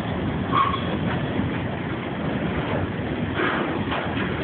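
Iron ore freight train running on the rails with a steady rumble and a short squeal about half a second in, recorded on a mobile phone with a thin, muffled top end.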